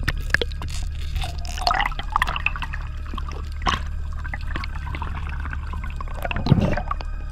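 Underwater sound picked up by a camera in its housing: water moving and gurgling against it, with scattered clicks over a steady low rumble. There is a louder gurgling splash near the end.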